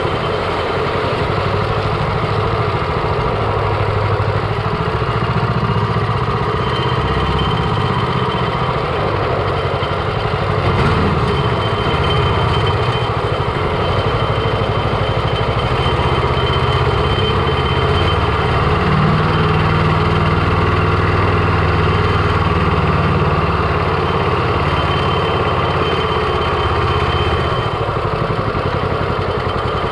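Predator 420cc 13 hp single-cylinder engine on a longtail mud motor running steadily, with small shifts in pitch a few times.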